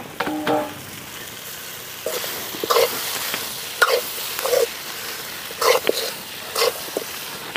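A steel spoon stirring diced raw papaya and grated coconut in a metal pan over a wood fire, with short scrapes against the pan about once a second from about two seconds in, over a low sizzle.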